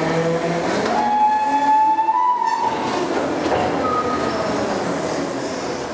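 MacDonald Johnston side-loader garbage truck's compaction gear heard from inside the steel body: a steady engine and hydraulic hum, then a high metallic squeal that rises slightly from about one second in, then a loose rushing clatter as green waste tumbles into the hopper.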